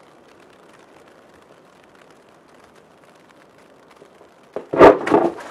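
Faint steady hiss, then near the end a sudden loud splash of water lasting about a second: a drenching that soaks the actor.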